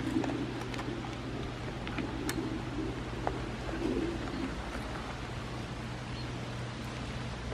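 Small goats crunching treats taken from a hand, heard as scattered sharp clicks. Soft low calls come several times in the first half, over a steady low hum.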